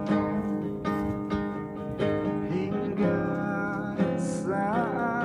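Background music: a strummed acoustic guitar, with a singing voice sliding in near the end.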